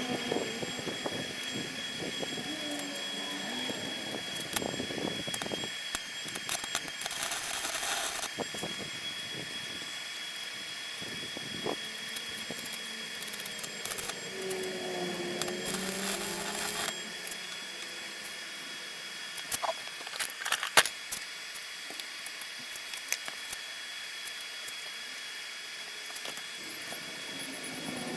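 Homemade coconut grater driven by a washing machine motor, running with a steady high whine, with a few sharp knocks about two-thirds of the way through.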